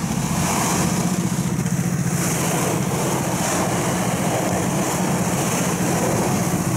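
Engine of an Uragan Taiga 2000 motorized snow tow pusher (motor dog) running steadily at an even pitch.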